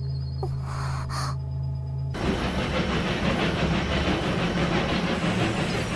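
A steady low hum with a short gasp under a second in, then at about two seconds a sudden switch to a dense, steady rumble: the sound effect of the space trains running.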